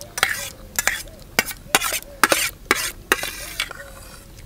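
Spoons scraping and clinking against steel plates as rice is scooped up quickly. There are sharp clinks about twice a second with scraping between them, thinning out near the end.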